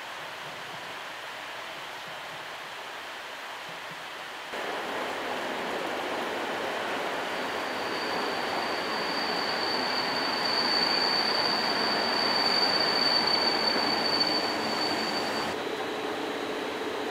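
An EN57 electric multiple unit pulls into the platform, its running noise building, with a steady high squeal from the brakes or wheels for about eight seconds. The squeal cuts off suddenly as the train comes to a stop, and a low steady hum takes over.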